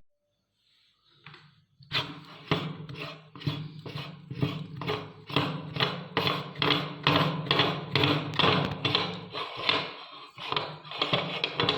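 Meat grinder crunching wafer biscuits: sharp cracking knocks about twice a second over a low motor hum, starting after a silent second and a half.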